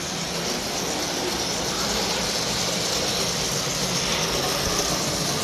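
O gauge model locomotive running along the track: a steady motor whir and wheel rumble with a hiss, growing slightly louder. Its truck wheels are dirty, which the owner takes for the cause of its uneven running.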